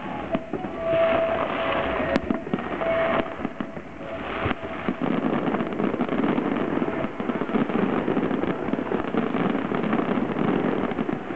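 Aerial fireworks bursting in a dense, continuous crackle, growing thicker about halfway through.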